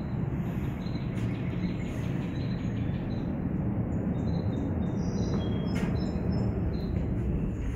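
Steady low rumbling outdoor noise with a few faint, short, high bird chirps above it.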